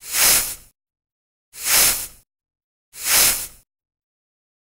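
Three whoosh transition sound effects, evenly spaced about a second and a half apart, each a short rush of hiss that swells and fades in well under a second.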